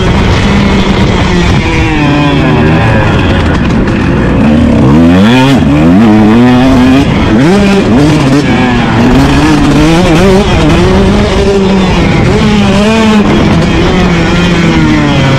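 Motocross dirt bike engine revving hard, its pitch rising and falling over and over as the throttle is opened and backed off. It is loud and close throughout.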